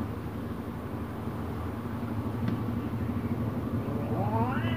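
A low steady rumble, and about four seconds in a domestic cat starts a rising, drawn-out yowl: the angry caterwaul of a cat squaring up to another cat.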